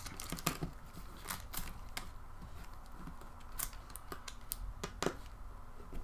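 Light, irregular clicks and taps of a small screwdriver and fingertips on the plastic and metal internal parts of an opened Nexus 7 tablet during disassembly.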